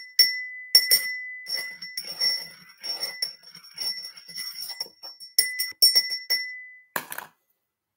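A small bell jingling: a run of irregular shakes or strikes, each leaving a ringing high tone, which stops with a clunk about seven seconds in.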